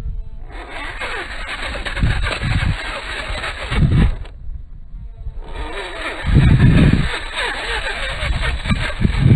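RC rock crawler's electric motor and drivetrain whining as it crawls over rock, with several low thumps.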